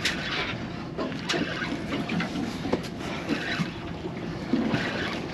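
Water lapping and splashing against a small boat's hull on open sea, with a few sharp knocks.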